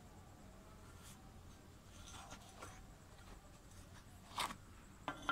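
Quiet handling noise: leather welding gloves rustling and rubbing as they turn a small welded steel tube. Near the end come a sharper scrape and two short clicks.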